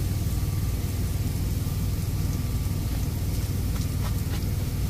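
Steady low rumble of an idling truck engine heard from inside the truck's living quarters, with a few faint taps about four seconds in as chopped garlic is scraped off a paper plate into an electric skillet.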